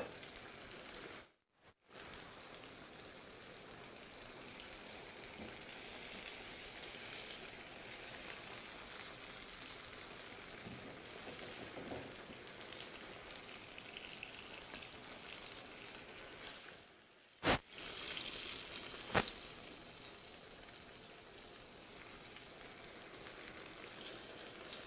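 Food sizzling steadily in pans on a gas stove: seared salmon in its pan juices and a simmering sauce. The sizzle drops out briefly twice, and past the middle two sharp clicks come about two seconds apart as fillets are lifted onto a plate.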